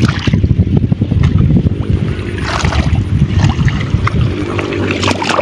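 Muddy paddy water sloshing and splashing as a person wades and gropes by hand in the mud, picking snails. There is a steady churn of small splashes, with two brighter splashes about halfway through and near the end.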